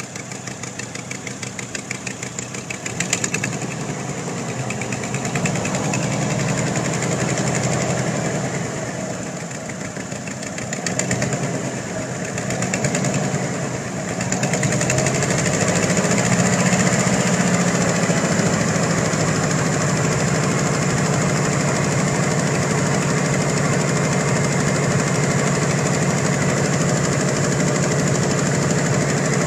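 1992 Ford Bronco engine running with its exhaust pulsing rapidly, the revs rising and falling a few times before settling into a steady idle; the owner suspects an exhaust leak at the shorty headers.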